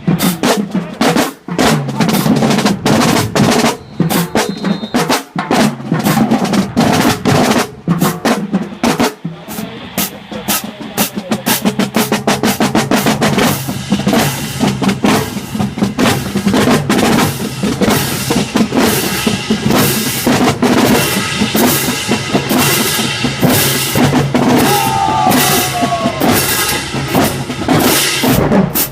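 High school marching band drumline playing a cadence on snare and bass drums; the sound grows fuller and more continuous from about halfway.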